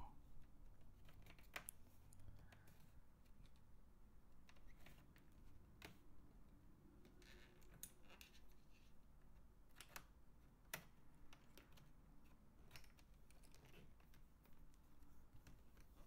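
Near silence broken by scattered faint clicks: a plastic prying tool working along the seam of a laptop's bottom cover, with the cover's plastic clips snapping free.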